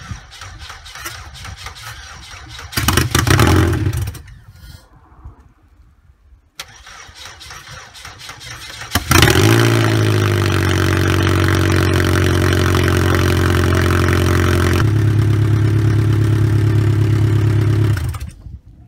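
Pontiac Sunfire demolition derby car's four-cylinder engine on a cold start: the starter cranks and the engine fires briefly and dies, then after more cranking it catches about nine seconds in and runs steadily, loud through an exhaust pipe out of the hood, before stopping near the end.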